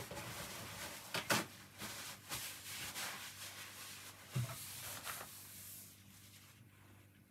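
Faint rubbing and rustling handling noise, with a light knock about a second in and another low knock a little after four seconds; it dies down in the last second or so.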